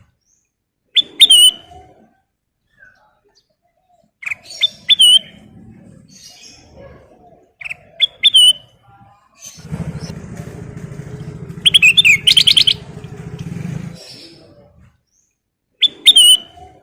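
Kutilang emas bulbul singing in short bursts of sharp, hooked chirps every few seconds, with a quick run of rapidly repeated notes about twelve seconds in. A steady low rumble runs underneath for about four seconds in the middle.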